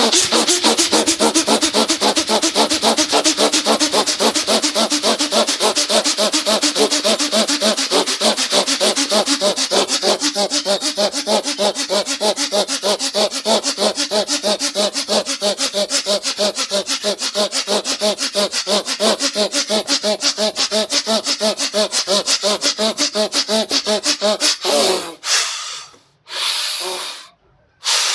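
Rapid, forceful rhythmic breathing of a yoga breathing exercise (pranayama kriya), with a short voiced push on each stroke, kept up at an even fast pace. It stops about 25 seconds in, and a few long, slow deep breaths follow.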